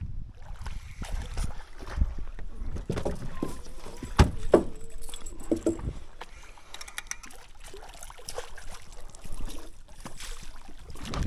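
Fishing gear and a landing net being handled in a small boat while a hooked golden perch is played to the boat: scattered knocks, clicks and rattles, the sharpest single knock a little over four seconds in.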